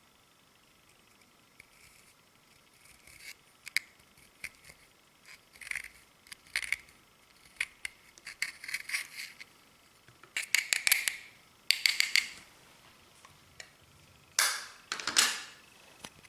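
Clear slime being worked by hand as eyeshadow is mixed in: scattered sticky clicks and small pops, coming in denser crackling clusters in the second half, with two louder squelching bursts near the end.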